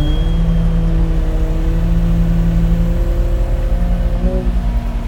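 Bobcat E80 compact excavator running steadily under work: diesel rumble with a whine on top that shifts in pitch a few times.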